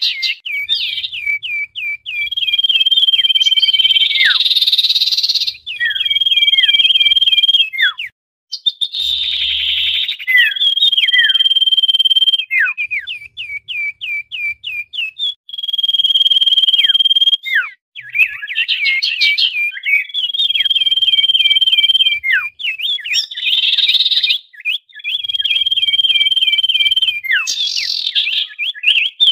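Common iora (sirtu/cipoh) calling busily. A long steady whistle is followed by a run of quick down-slurred chirps, and the phrase repeats over and over, broken now and then by short bursts of harsh chatter.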